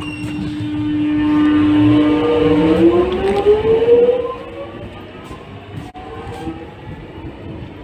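X'Trapolis 100 electric train's traction motors and inverters whining as the train accelerates: a steady tone that rises in pitch for about two seconds, then drops back under the rumble of the train.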